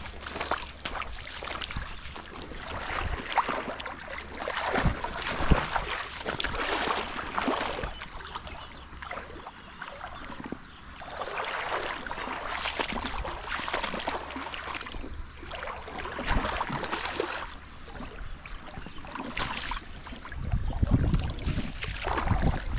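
River water sloshing and splashing in irregular surges as someone wades through a shallow stream, with a low rumble near the end.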